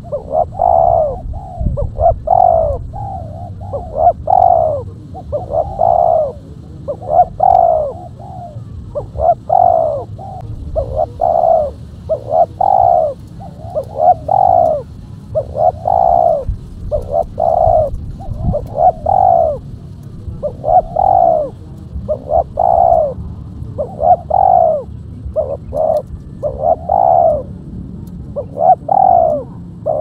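Spotted dove cooing: a long run of low, hollow coo notes, each one bowing up and down in pitch, repeated about once a second in steady phrases.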